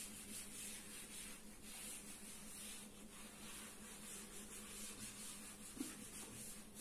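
Blackboard duster rubbing chalk off a blackboard in repeated back-and-forth strokes, a faint swishing scrub.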